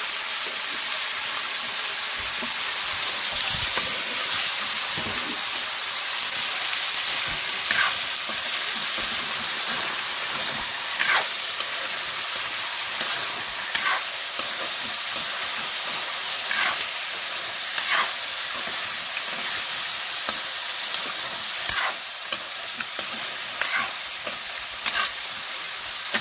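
Chicken and vegetables sizzling steadily in an aluminium wok. From about eight seconds in, a spatula scrapes and stirs through the pan every second or two.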